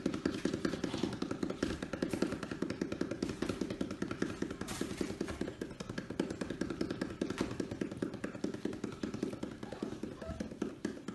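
Hands drumming rapidly and steadily on an inflated rubber ball, a quick run of soft thumps. It is a rhythmic signal that calls the puppies to come and play.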